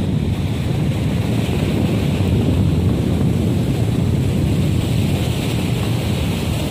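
Wind buffeting the microphone over a steady rush of sea surf.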